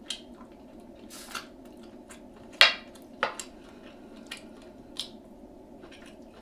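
Close-miked eating of fried seafood: scattered crunches and clicks, the sharpest about two and a half seconds in and another just after three seconds, over a faint steady background hum.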